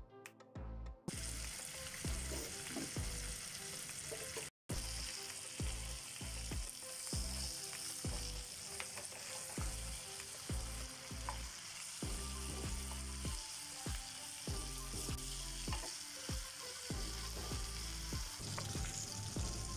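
Large prawns sizzling in hot oil in a nonstick pan, with a wooden spatula scraping and knocking against the pan as they are turned and lifted. The sizzle cuts out for a moment once, about four and a half seconds in.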